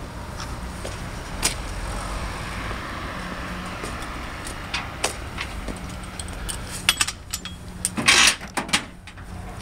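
A vehicle engine running with a steady low hum, with scattered short clicks and knocks and a brief louder rushing noise near the end.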